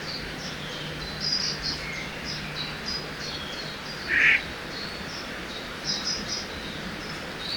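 Forest birds chirping and trilling in short high phrases over a steady rush of river water, with one louder, harsher bird call about four seconds in.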